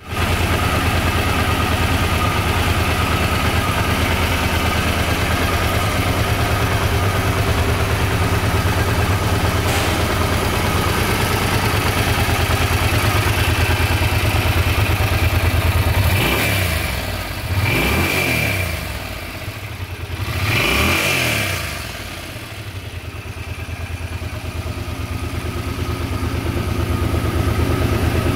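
Suzuki Intruder 800 cruiser's 805 cc V-twin idling steadily, blipped up in revs twice a little past the middle and dropping back to idle each time.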